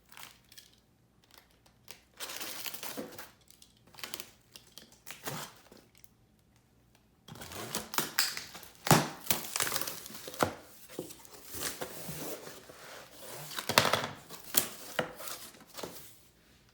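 A cardboard shipping box being cut open with a box cutter and unpacked: scattered short scrapes and tears at first, then about seven seconds in a busy stretch of crinkling and rustling packaging with sharp knocks.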